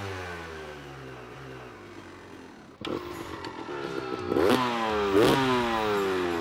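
Two-stroke Honda CR250R dirt bike engine running, its pitch sinking slowly. After a sudden cut, it is revved in two sharp throttle blips, the pitch rising and then falling back after each.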